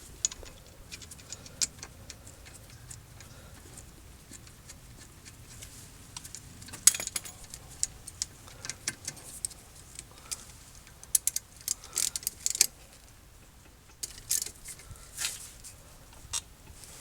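Ratchet socket wrench clicking in short runs as the brake caliper slide-pin bolts are threaded in and tightened, with light metallic clinks of tools and parts between runs.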